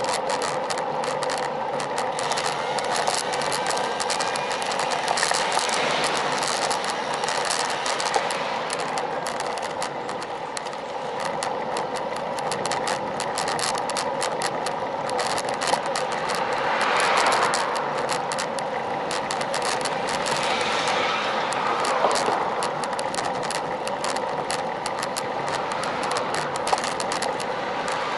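Road bike rolling along coarse asphalt: a steady tyre and road hum with constant small rattling clicks. A passing car swells up about seventeen seconds in.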